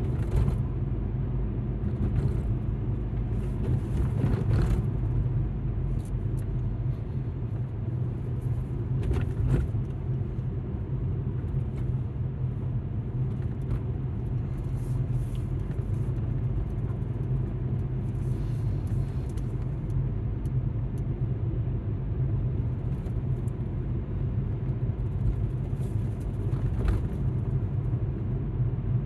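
Steady low rumble of an Alfa Romeo MiTo's engine and tyres heard inside the car while driving, with a few brief knocks.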